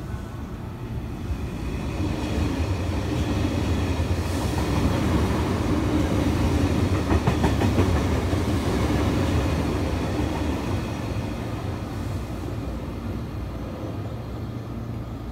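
A JR West 283 series electric limited express train passing through the station at speed without stopping. The noise builds, is loudest about halfway with a quick run of wheel clicks over the rail joints, then dies away as the train leaves.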